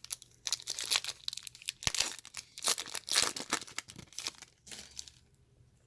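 Wrapper of a trading card pack being torn open and crinkled by hand: a run of irregular crackling that dies away near the end.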